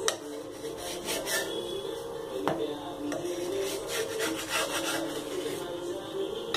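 Wooden spatula scraping and rubbing against a hot iron tawa under a paratha in scattered short strokes, loosening it for flipping, over a steady low hum.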